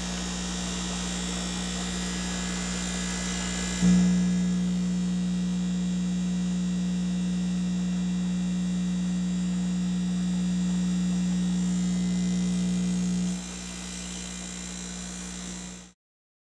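High-output electric air pump, hung from hooks on a cloth strap to cut its noise, running with a steady electric hum. About four seconds in the hum suddenly grows louder and buzzier, and drops back a little over a second before the sound cuts off.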